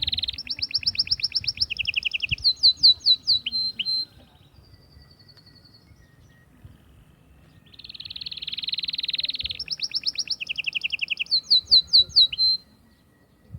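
Domestic canary singing two song phrases about four seconds apart. Each phrase opens with a fast buzzy trill, moves into quicker, higher rolls, and ends in a run of sharp descending notes.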